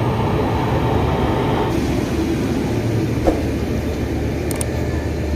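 Train departing: a WAP7 electric locomotive and then passenger coaches roll past, with a steady low rumble of wheels on rails. A single sharp knock comes about three seconds in.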